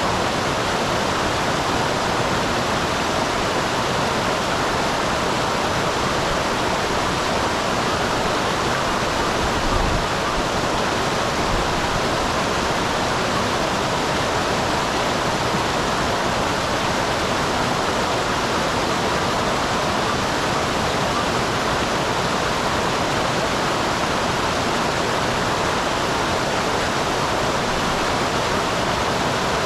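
A small waterfall on a mountain stream: a steady, even rushing of falling water.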